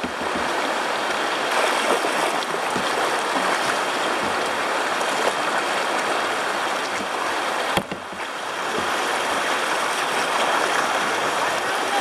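Rushing river water, a steady rush of moving current around the kayaks, with one sharp knock about eight seconds in.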